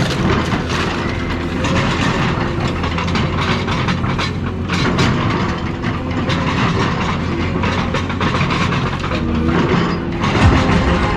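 Heavy machine running steadily under load, with irregular metal clanking and scraping over a constant low engine hum, as car bodies are worked apart.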